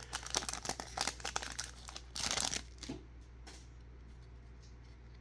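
Foil trading-card pack wrapper crinkling and tearing as it is pulled open and the cards slid out. The crackle stops about three seconds in, leaving only faint ticks of the cards being handled.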